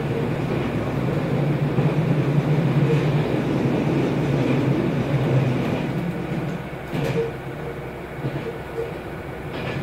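KiHa 201 series diesel railcar running, its engine and running noise heavy at first and easing off after about six seconds, with a sharp knock about seven seconds in.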